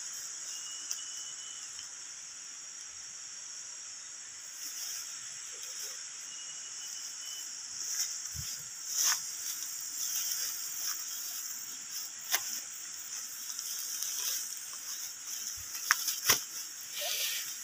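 Steady high-pitched insect chorus of tropical forest, with scattered rustles and clicks of footsteps pushing through ferns and grass, several in the second half. Two short high whistled notes come through, one near the start and one about seven seconds in.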